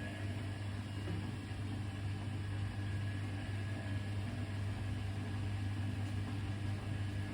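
Hoover VHD 812 front-loading washing machine running during its cotton cycle, its drum motor giving a steady low hum with a faint high whine above it.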